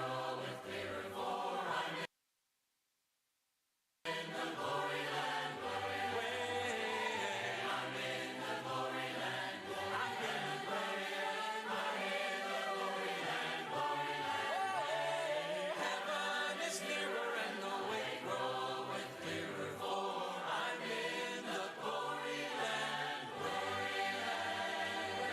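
Group of voices singing a hymn in harmony. The sound cuts out completely for about two seconds, then the singing carries on.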